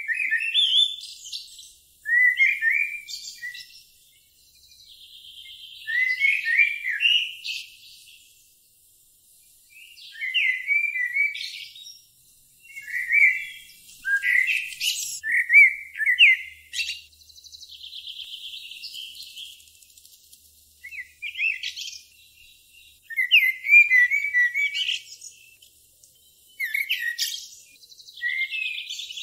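Songbird singing short phrases of high chirps every two to four seconds. Between some phrases it holds a high, fast trill for a few seconds.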